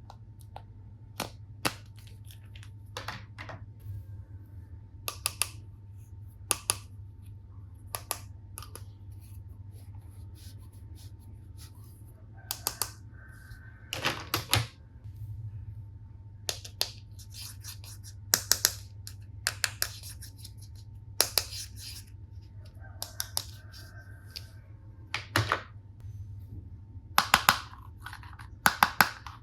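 Hard plastic toy tool pieces clicking and clacking as they are handled: sharp, irregular clicks that come thicker near the end, with two short hums about a second long in between.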